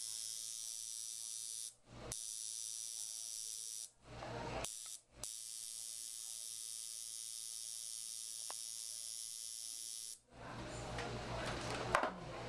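Permanent-makeup tattoo machine running with a steady high-pitched buzz, cutting out briefly three times. About ten seconds in the buzz stops and a rougher, noisier sound takes over, with a sharp click near the end.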